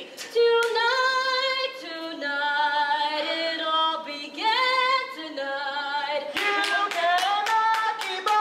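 Live stage singing: a voice holding long, wavering notes. From about six and a half seconds in, hand claps join at a few a second.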